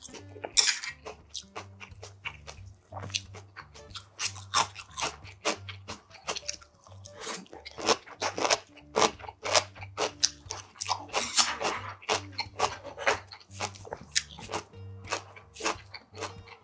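Close-miked slurping of ramen noodles and chewing with crunchy bites, over soft background music.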